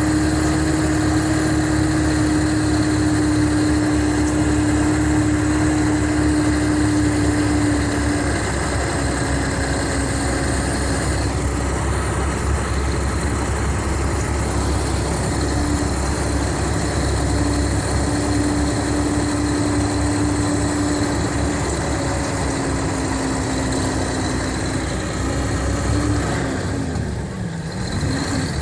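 Mercedes-Benz O500RSD bus's diesel engine running steadily, with a constant hum. Its pitch steps slightly lower about eight seconds in, then dips briefly and comes back up near the end.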